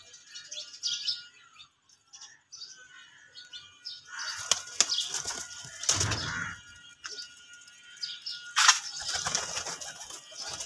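Domestic pigeons' wings clapping and flapping as they take off from and land on a wooden perch, in two bursts: one about four seconds in, lasting about three seconds, and a second near the end.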